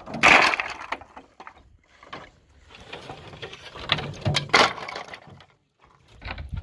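Old weathered wooden boards clattering and knocking together as they are dropped onto a pile on the ground. The loudest clatter comes just after the start, another run of knocks around four to five seconds in, and one more near the end.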